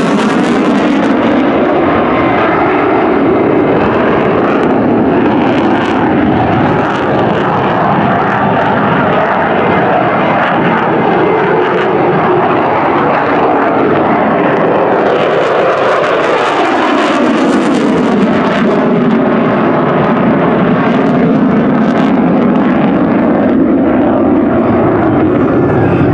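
Loud, continuous roar of an F-16 fighter jet's engine, with the afterburner lit at the start. The pitch of the roar falls in the first seconds, then rises and falls again about two-thirds of the way through as the jet sweeps past.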